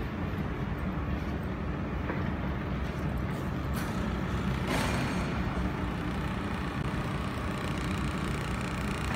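Steady low hum of a laser welding machine's cooling fans and chiller running, with a couple of faint clicks midway.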